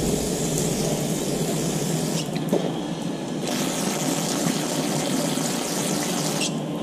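Aerosol cleaner hissing out of a spray can onto a mesh filter screen, in two long bursts with a weaker lull between them, plus a light click about two and a half seconds in.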